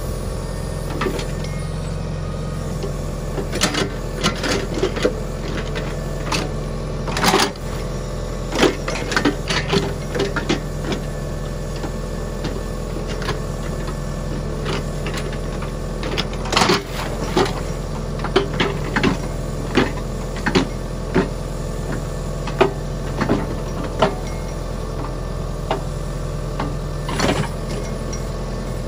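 A John Deere 6300 tractor's diesel engine running steadily while it powers a rear-mounted backhoe. Irregular sharp metal knocks and clanks come from the backhoe as it swings, dumps and digs, the loudest about seven and sixteen seconds in.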